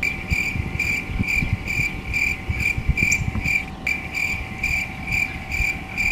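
A short, high-pitched chirp or beep repeating very evenly about twice a second, over a low rumble.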